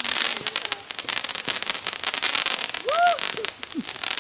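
Fireworks cake going off with dense, rapid crackling, many pops a second throughout, and a brief rising-and-falling tone about three seconds in.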